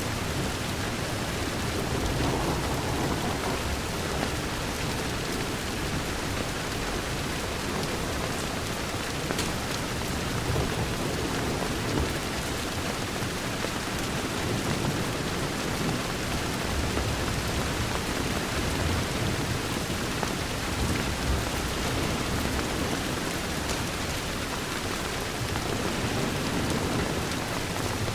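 Steady heavy rain pattering against a window, an even hiss with a low rumble underneath and faint scattered ticks.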